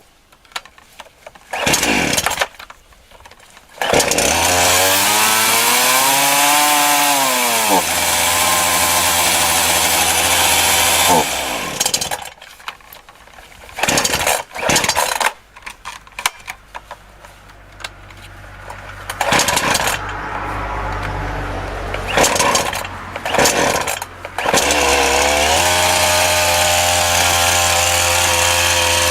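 Titan TTL759CHN two-stroke petrol chainsaw being revved up and down several times, with quieter stretches of idling and short blips of throttle in between. Near the end it settles into a steady high-speed run.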